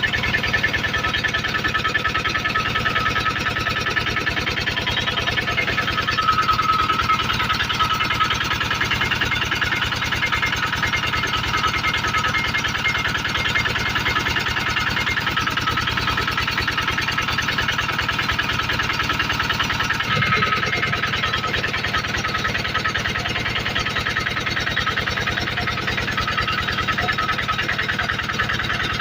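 Generator engine running steadily at a constant speed, a continuous drone with a faint steady whine. There is a slight shift in tone about two-thirds of the way through.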